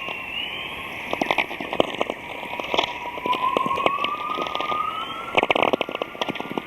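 Recording presented as the sound of the northern lights: irregular crackles and sharp clicks over a steady hiss, with thin whistling tones gliding slowly. One whistle rises through the middle and sinks again near the end. The clicks crowd together a little past the middle.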